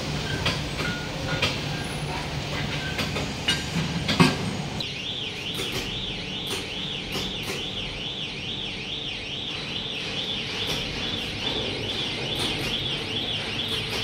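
Workshop hum with scattered clicks and a knock about four seconds in. Then an electronic warning alarm on a transformer test control panel starts, a high tone warbling up and down about twice a second.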